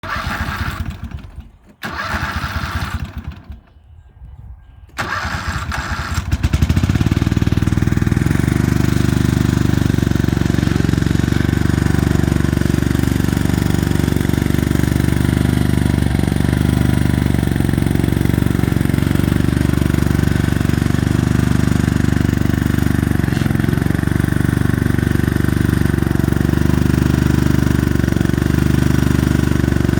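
Husqvarna GTH 220 riding lawnmower engine being started: a few short stop-start bursts of cranking in the first five seconds, then it catches about six and a half seconds in and runs steadily.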